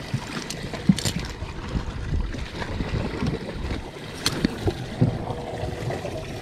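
Irregular rustling and scattered knocks from fabric gear and tackle being handled on a boat deck close to the microphone, with light wind noise.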